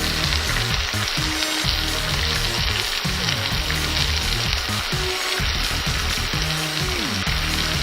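Ribeye steaks frying in a pan on the stovetop, giving a steady, dense sizzle.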